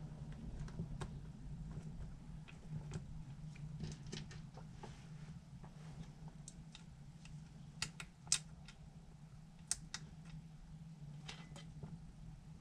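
Small screws and metal and plastic parts of a scale model lift kit clicking and tapping as they are handled and fitted by hand: scattered light clicks, the sharpest about eight and ten seconds in, over a steady low hum.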